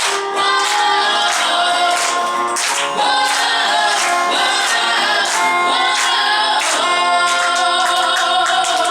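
Final bars of a song: music with singing over a steady beat.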